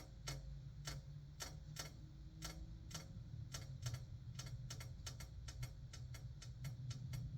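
Computer keyboard keys clicking in irregular runs, with a steady low hum underneath.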